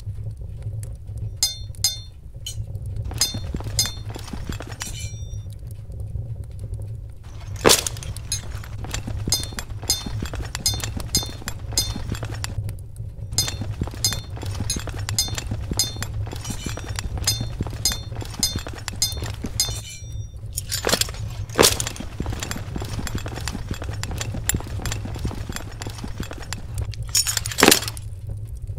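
Foley sound effects: a run of small ringing clinks and dense crackling, with sharp loud cracks about a quarter of the way in, twice close together around two-thirds of the way through, and once near the end, all over a steady low hum.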